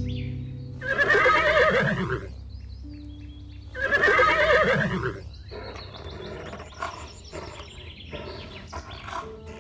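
An animal calling twice, each a loud, wavering cry about a second long, the calls some three seconds apart, followed by background music.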